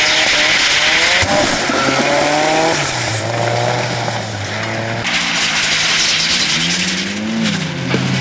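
Drifting Nissan S13 hatchbacks under hard throttle: engine revs climb in steps and fall as the drivers work the throttle, with tyres squealing through the slide. The squeal is strongest in the first second and again through the latter part.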